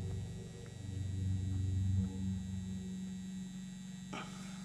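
A low, steady hum with overtones, with a single short tick about four seconds in as the 3D-printed plaque pattern is pried free of the Petrobond sand mold.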